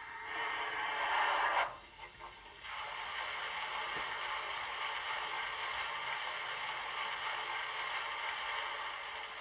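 DCC sound decoder in a Bachmann GWR Dukedog (Earl of Plymouth) model locomotive playing its water-tank-filling effect: a rush of water that is loudest for the first second and a half, breaks off briefly, then settles into a steady hiss.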